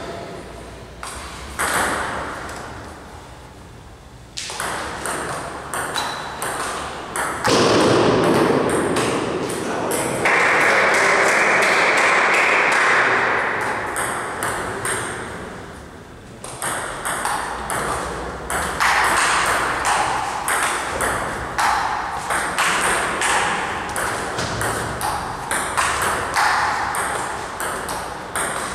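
Table tennis ball clicking off paddles and the table in quick rallies, a string of sharp ticks. In the middle comes a loud stretch of noise lasting several seconds.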